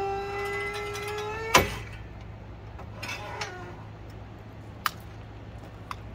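Hydraulic motorcycle lift's pump motor whining steadily as the platform rises, going slightly up in pitch and then stopping with a loud clunk about a second and a half in as the lift reaches its top position. A short creak and two sharp clicks follow.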